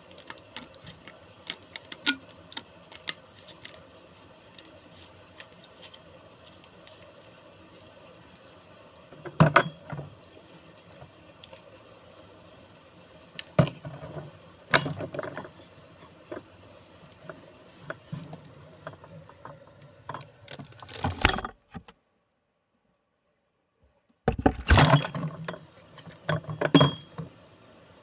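Scattered clicks and several louder bursts of clattering knocks, as of hard objects being handled and set down, over a steady low hum. The sound cuts out completely for about two seconds past the middle.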